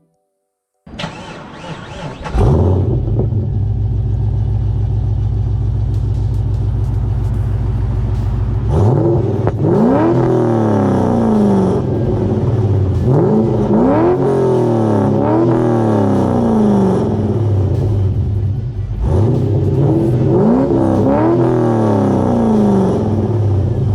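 Holden's LS1 V8 exhaust: the engine starts about a second in and settles into a steady idle. From about nine seconds in it is revved in neutral in three groups of quick blips, each rising and falling in pitch.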